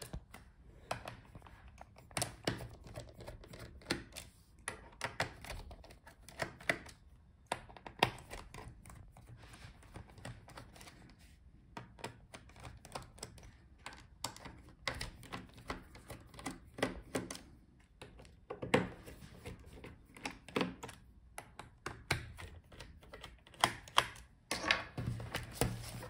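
Small screwdriver working the screws of a Dell Latitude 5440 laptop's bottom case: irregular light clicks and taps of the bit and fingers on the case, a little busier near the end.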